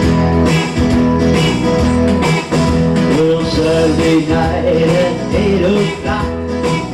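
Band music: an electric guitar playing over a bass line and a steady beat.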